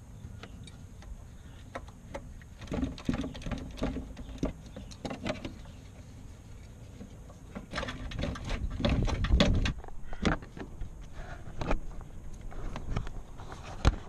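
Hands working up inside a car's front wheel well behind the plastic fender liner: irregular clusters of clicks, knocks and scrapes on plastic and metal, busiest about eight to ten seconds in, over a low steady rumble.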